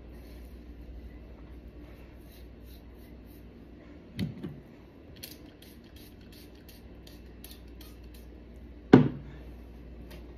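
Hand-held spray bottle spritzing onto hair, a run of quick short sprays about two or three a second. Two dull thumps break in, the louder one near the end.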